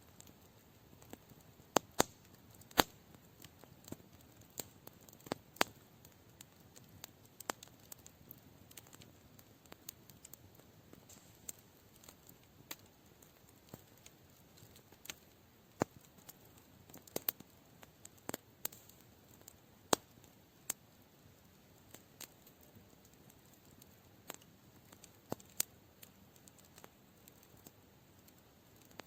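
Campfire crackling: wood popping and snapping in irregular sharp clicks over a quiet background, a few of them much louder than the rest.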